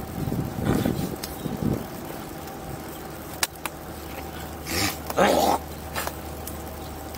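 A man drinking from a plastic water bottle: sharp clicks and crinkles of the bottle being handled, then a short, loud breathy sound about five seconds in, after the drink.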